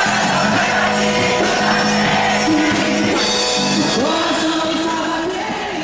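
Music with singing over a steady beat, beginning to fade out at the end.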